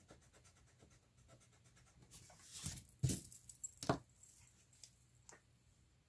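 Faint scratching of a pencil drawing a line on paper. About halfway through come a few louder knocks and rustles as the pencil is set down on the desk and a plastic glue bottle is picked up.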